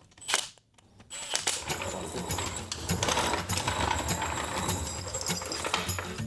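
Cordless impact driver hammering as it runs down the bolts on a transmission cover, starting about a second in and running on steadily.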